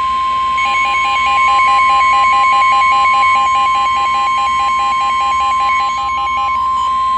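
Weather alert tone: a steady high warning tone near 1 kHz, the NOAA Weather Radio warning alarm that comes before a National Weather Service warning message. Over it, an electronic alarm beeps rapidly, about five beeps a second, and stops shortly before the end.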